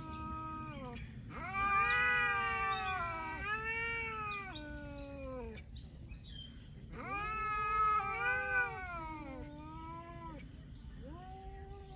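Two tomcats yowling at each other in a standoff: several long, drawn-out caterwauls that waver up and down in pitch, the threat calls cats make before a fight.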